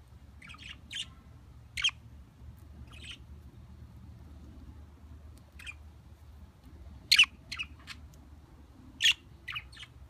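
Budgerigar chirps: short, sharp calls, singly and in quick clusters of two or three, about a dozen in all, the loudest about two seconds in, at about seven seconds and at about nine seconds.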